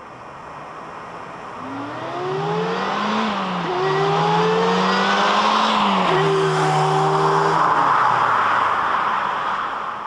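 Toyota Corolla T-Sport Compressor's supercharged 1.8-litre four-cylinder accelerating hard past the camera. Engine pitch climbs, drops sharply at two upshifts about three and six seconds in, holds steady, then fades as the car drives away.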